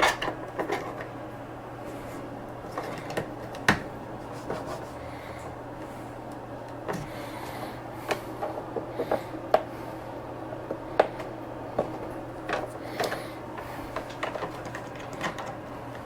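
Scattered light clicks and taps of hard plastic parts being handled, as a printed removal tool and tube fittings are worked on the printer's AMS hub, over a steady low hum.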